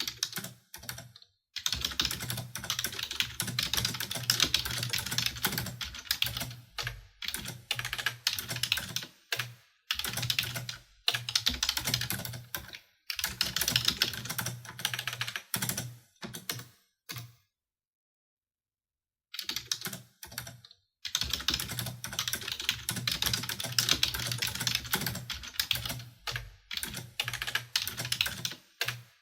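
Computer keyboard typing: rapid runs of key clicks in bursts of a few seconds, broken by short pauses, with a longer pause of about two seconds a little past the middle.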